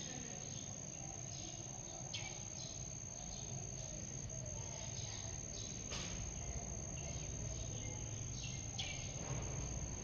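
Insects trilling in one steady high-pitched tone, with a few short chirps scattered over it.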